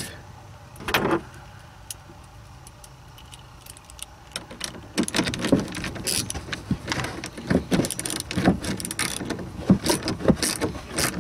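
Metal hand tools clinking and clicking on a car battery terminal, a socket wrench being fitted and worked on the positive terminal clamp. There is a click at the start and a short knock about a second in, then a run of irregular clicks and clinks from about halfway on.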